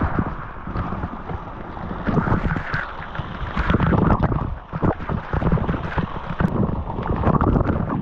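Waterfall water rushing and wind buffeting the microphone, with irregular knocks and thumps throughout.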